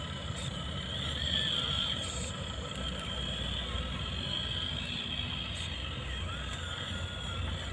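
Remote-control model truck running: a steady low rumble with a high whine that wavers up and down.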